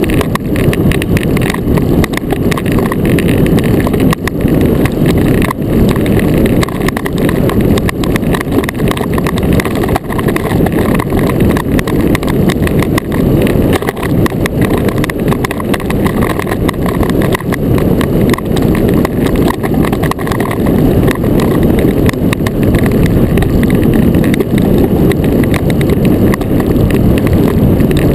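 Iceboat runners rumbling and chattering over hard lake ice at speed, heard through the hull from a camera mounted on the boat: a loud, steady, rough rattle with no letup.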